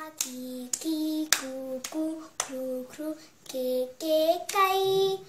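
A young girl singing a Telugu children's vowel song, one drawn-out vowel per note, clapping her hands in time at the start of several notes. The last note is held longest.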